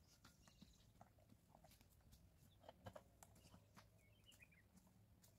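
Near silence in an open field: faint scattered taps and a brief, faint bird chirp about four seconds in.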